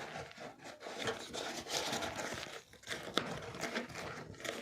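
Product packaging being handled by hand: crinkling plastic and cardboard rustling and scraping, with scattered small clicks and taps as items are put back into the box.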